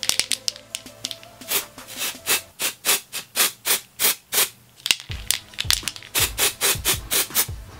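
Aerosol can of temporary hair-colour spray hissing in short, quick bursts, about three a second, as it is sprayed onto hair.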